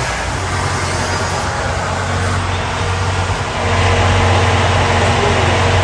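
Drift car engine running steadily at low revs over loud noise, getting slightly louder a little under four seconds in.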